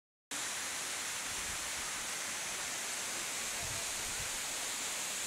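Steady, even hiss, strongest in the high register, with faint uneven low rumbles beneath it.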